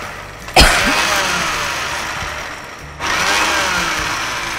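Electric mixer grinder pulsed twice in short bursts, dry-grinding fried tempering spices and sesame seeds to a powder in a small steel jar. Each burst starts suddenly, about half a second in and again about three seconds in, then dies away with a falling whine as the motor winds down.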